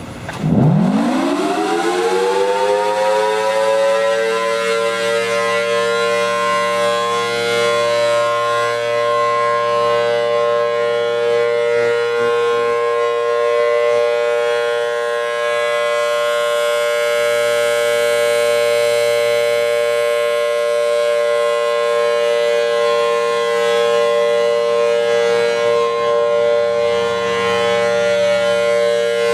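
Emergency alert siren in the style of a civil defense siren. It winds up sharply in the first second, then holds a loud, steady sound of several high tones at once without wavering.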